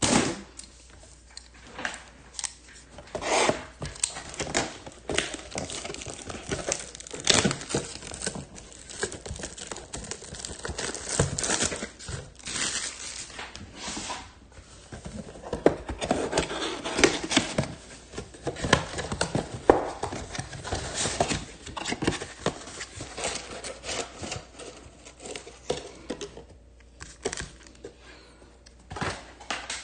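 Plastic shrink wrap being torn and crumpled off a sealed trading-card box, with irregular crackling and rustling as the box is handled and opened.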